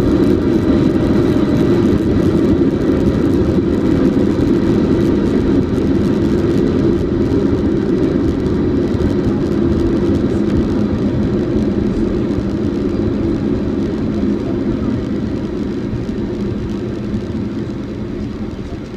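Boeing 777-200 cabin noise during the landing roll on a wet runway: a steady rumble of the jet engines and the wheels on the runway, easing off gradually through the second half as the airliner slows.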